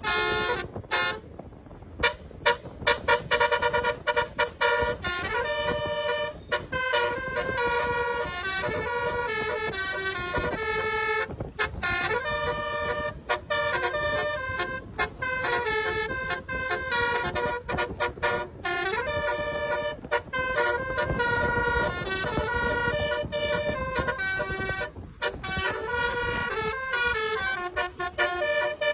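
Indonesian bus telolet horn, a Basuri-type multi-tone horn, playing a stepped melody of short toots over and over, over a low rumble.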